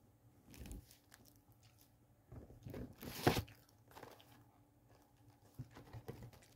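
Cardboard snack-cake box handled close to the microphone: scattered rustles and scrapes, with the loudest, sharpest one about three seconds in and a few lighter ticks near the end.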